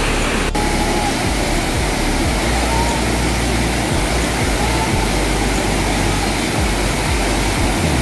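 Waterfall: a steady, dense rush of water pouring over rock ledges, with a brief dropout about half a second in.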